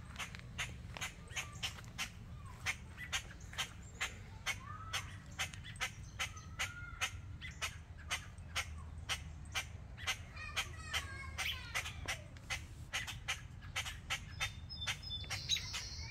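A bird scolding with a long run of sharp alarm chips, about three or four a second, while other birds give a few short chirps. A steady low rumble sits underneath.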